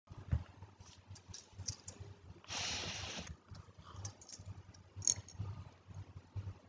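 Steel spoon stirring a thick semolina and vegetable mixture in a metal kadai: irregular clinks and taps of the spoon against the pan, with a brief louder hiss about two and a half seconds in.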